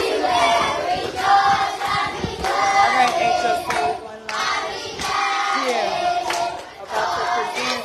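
A group of schoolchildren singing a song together in phrases, with a few hand claps.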